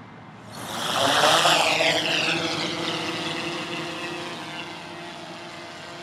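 DJI Inspire 1 quadcopter's four propellers throttling up for take-off: a whirring hum that swells quickly about half a second in and is loudest about a second in. It then settles into a steady drone-rotor buzz that slowly fades as the aircraft climbs away.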